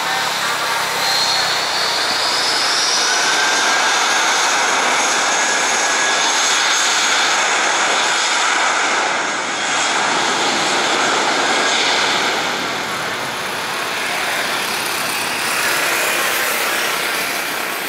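Airbus A320 jet engines running loud on the landing rollout, spoilers deployed as the airliner slows on the runway. About a second in, a whine rises and then holds over the steady roar.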